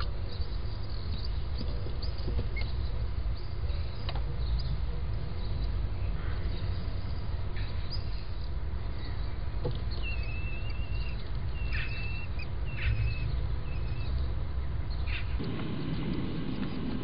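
Outdoor microphone audio played back about three times fast: a steady low rumble with a few faint, short bird calls and light clicks, mostly around the middle. A louder rushing noise comes in near the end.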